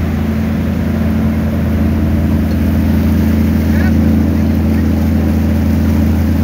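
Riverboat engines running steadily under way: a deep, even drone that grows slightly louder about two seconds in.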